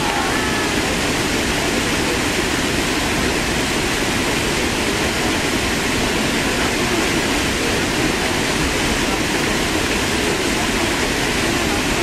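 Sakura-no-taki waterfall pouring over a rock ledge into a churning plunge pool: a steady, even rush of falling water.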